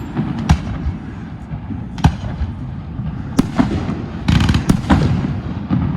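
Fireworks going off: a series of sharp bangs at uneven intervals, with a longer, denser burst just after four seconds in, over a steady low rumble.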